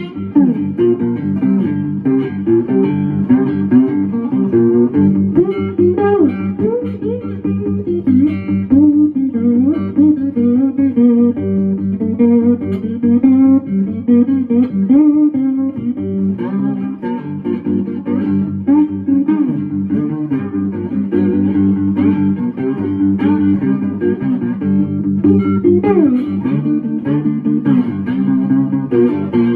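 Four-string cigar box guitar in G-D-G-G tuning, played with a steady drone on the low G under a melody full of string bends and slides.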